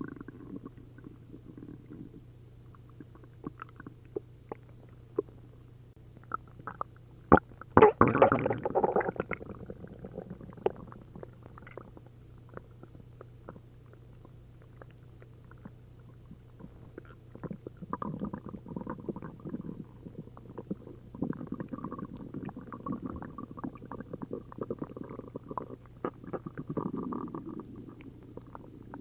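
A human stomach gurgling and rumbling with liquid bubbling, upset after drinking a liter of milk and a liter of prune juice. A loud gurgling surge comes about eight seconds in, then a quieter stretch with scattered pops, then a long run of busy gurgles in the second half.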